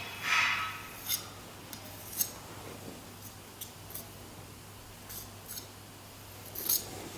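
Steel palette knife working mineral Venetian plaster: a soft swish of the blade smoothing near the start, then a few short scrapes and clicks of the blade on the plaster and the tool.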